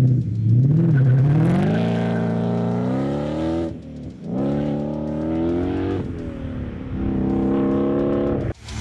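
Ford Shelby GT350's 5.2-litre flat-plane-crank V8 through a Magnaflow Competition stainless catback exhaust, accelerating hard away. The pitch climbs through a gear, dips at an upshift about four seconds in, climbs again, shifts once more about six seconds in and pulls a third time. The sound cuts off suddenly just before the end.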